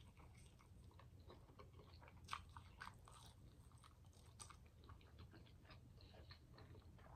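Faint close-miked chewing of steak eaten by hand, a run of soft mouth clicks and smacks, a few of them sharper about two to three seconds in, over a low steady hum.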